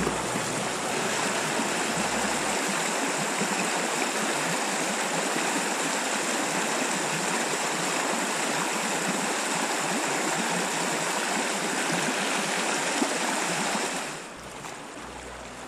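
Steady rushing of flowing river water, an even hiss with no rhythm, that drops suddenly to a quieter level near the end.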